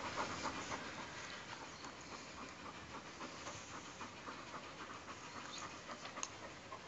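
An injured dog panting steadily and faintly through an open mouth with its tongue hanging out.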